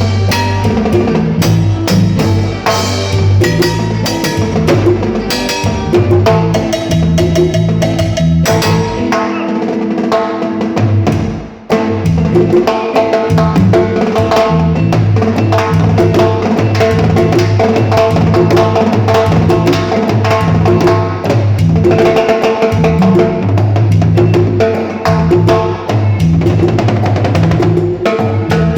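Live cumbia band jamming at a sound check, the drum kit and percussion keeping a steady beat under pitched instruments. The music drops away briefly about eleven seconds in, then picks up again.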